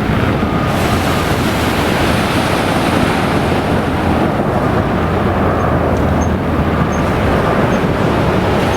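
Steady rushing roar of a landing airliner, mixed with wind buffeting the microphone.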